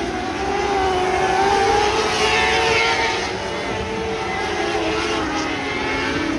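Several winged lightning sprint car engines racing around a dirt oval at high revs, their pitches wavering as they climb and lift through the turns. About two seconds in, one passes close with a falling pitch.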